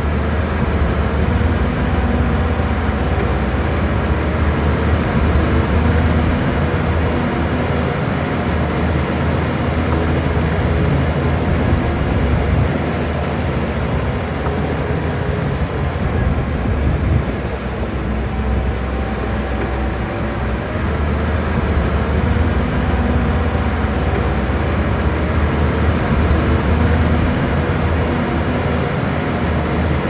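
Heavy earthmoving machine's diesel engine running steadily, easing off slightly about halfway through before picking up again.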